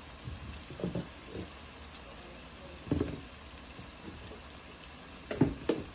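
Onions and whole spices frying in oil in a pot, a steady sizzle with a few louder pops.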